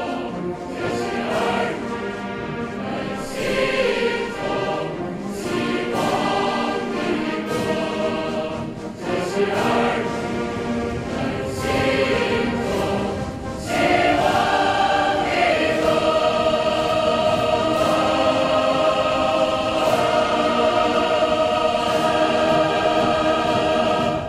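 Choir and orchestra in a grand, anthem-like piece, with sharp percussion strikes every second or two. About two-thirds of the way through it swells into a long, loud held chord.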